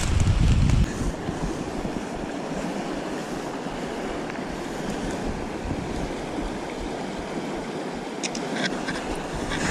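Shallow rocky river running, a steady rush of water, with wind buffeting the microphone for about the first second. A few light clicks near the end.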